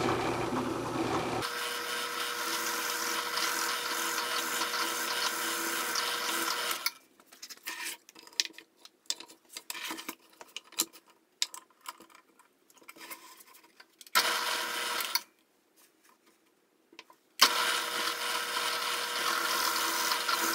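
Drill press running with a steady motor tone, boring 7/16-inch holes in an oak board. About a third of the way in it stops, and scattered knocks and clatter follow as the board is shifted in the drill press vise. It runs briefly once more, then runs steadily again for the last few seconds.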